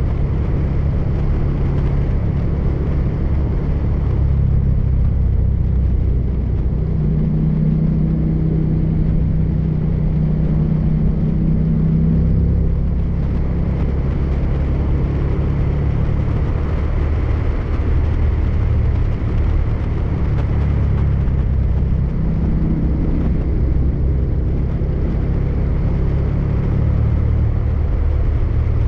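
Motorcycle engine running at a steady cruising speed, mixed with wind and road noise. The engine note grows stronger twice, about a quarter of the way in and again about three quarters in.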